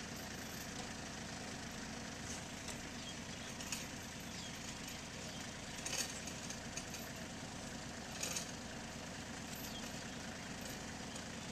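Small farm tractor engine idling steadily, with a few short sharp sounds over it, the loudest about six seconds in.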